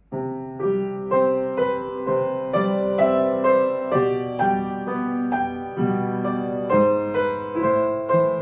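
Gentle piano music, notes struck about twice a second, each ringing and fading.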